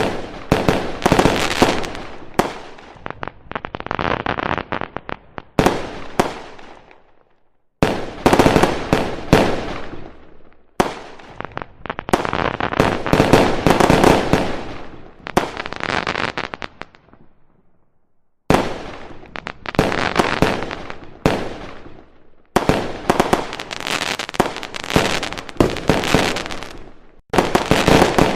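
Aerial fireworks display: rapid volleys of shell bursts and crackling, with sharp bangs coming in dense clusters separated by a few short breaks.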